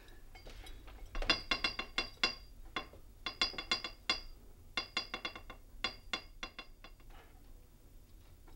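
A wrench tapping Morse code on a metal pipe: several quick bursts of sharp, ringing metallic taps, spelling out a message.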